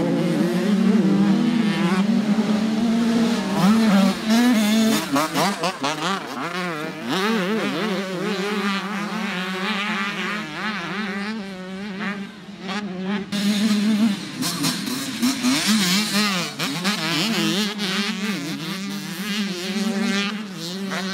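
Several motocross dirt bike engines racing, revving hard and dropping back again and again as the riders shift and work the throttle over the jumps, so the pitch keeps rising and falling.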